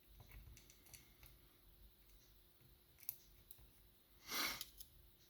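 Faint small clicks of tweezers and tiny brass lock pins and springs being handled while the lock's upper pin chambers are emptied, with one brief louder scrape about four seconds in.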